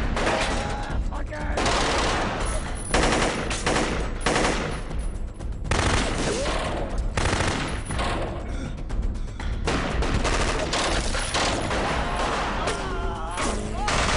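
Film soundtrack of a gunfight: repeated rapid gunshots from handguns, with music underneath.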